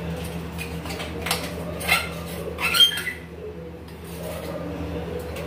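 Metal clinks and scrapes of a spoon against a small stainless steel jar as powdered sugar is emptied out, three sharp strokes about a second apart, the last the loudest. A steady low hum runs underneath.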